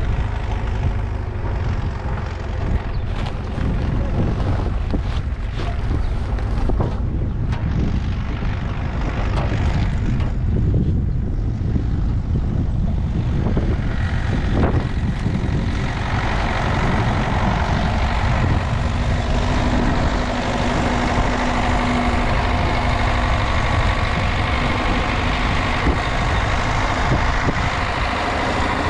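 Engine of a heavy diesel farm machine running steadily, with scattered knocks in the first half. About halfway through, a louder, higher steady whine and hiss join it.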